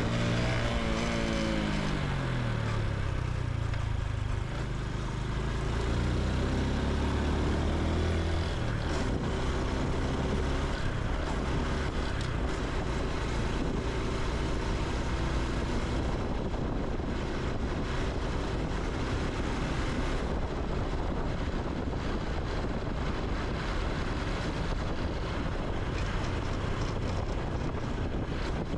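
Honda Super Cub C125's single-cylinder engine and exhaust on the move. The engine note falls over the first few seconds as the bike slows, then picks up again. From about eight seconds in, a steady rush of wind and road noise covers most of it.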